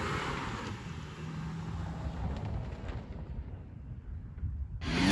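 Skid steer engine running, a low rumble that fades away over the first few seconds. Loud music cuts in suddenly near the end.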